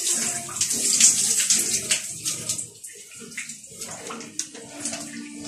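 Shower head spraying water, a loud steady hiss that dies away about two and a half seconds in as the water is turned off, leaving only faint splashes.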